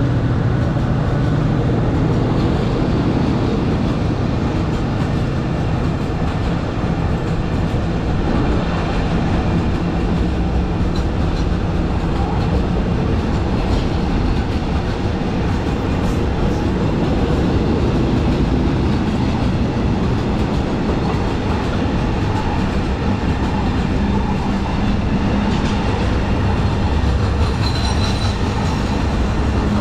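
Freight train of container wagons rolling through the station, a steady, continuous noise of wheels on rail, with a low hum in the first several seconds that then fades.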